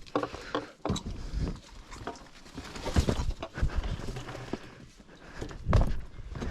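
Footsteps squelching through deep, wet mud: a few irregular, heavy steps, the loudest about three seconds in and again near the end.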